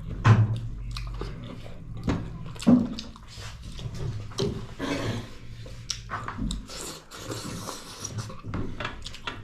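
Eating sounds: chewing, with a run of irregular short clicks and mouth smacks.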